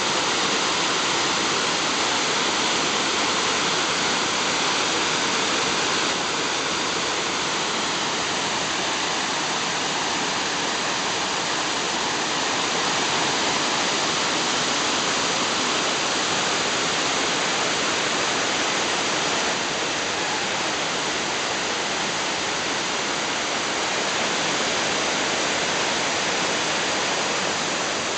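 Wide cascading waterfall pouring over a rock step into a pool: a steady, even rush of water that holds constant without a break.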